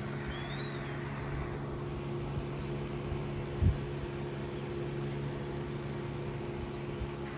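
Steady low mechanical hum made up of several held tones, like a running motor or ventilation unit. A faint high chirp comes near the start, and a short thump a little past halfway.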